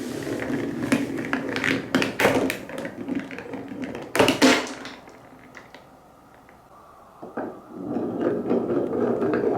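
Balls rolling along a wooden marble run: a steady rolling rumble broken by sharp clacks as they drop onto and knock against the wooden pieces. It goes quieter a little past halfway, then the rolling picks up again near the end.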